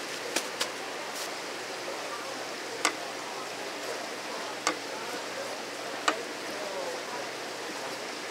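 Knife blade knocking against a cutting board in a handful of sharp, unevenly spaced strokes as a large yellowtail is cut for sashimi, over a steady hiss of background noise.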